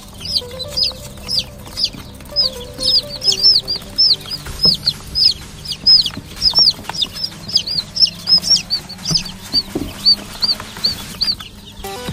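A brood of newly hatched chicks peeping: a steady run of short, high, arching cheeps, two or three a second.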